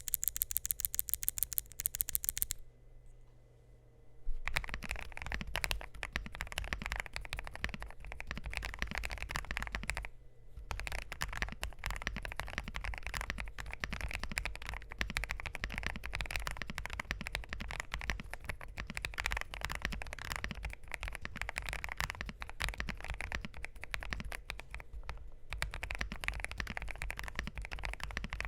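Typing on a Hexgears M2 mechanical keyboard with lubed Kailh fence linear switches, a polycarbonate plate and PBT CSA keycaps: a dense, continuous patter of keystrokes that pauses briefly twice. It opens with a quick, even run of sharp clicks for about two seconds, then a short lull before the typing starts.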